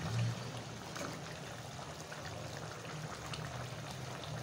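Thick chicken liver curry simmering in an aluminium pot on a gas burner: a steady, quiet bubbling hiss, with a few faint clicks of a steel ladle stirring against the pot.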